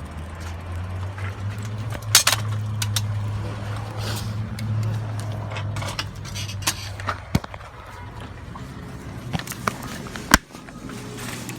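Outdoor street noise: a low steady hum, like a nearby running engine, for about the first seven seconds, with scattered clicks and knocks and one sharp knock about ten seconds in.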